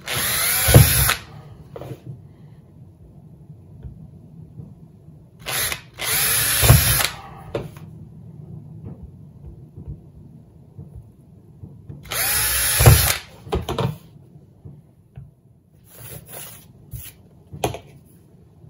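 Cordless drill boring holes through white plastic conduit: three main bursts of a second or so, each rising in pitch as the motor spins up, followed by several shorter bursts near the end.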